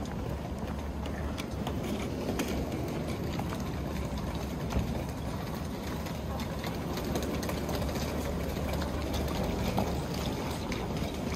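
Footsteps and rolling suitcase wheels clattering along a station platform, with many small irregular clicks over a steady low hum.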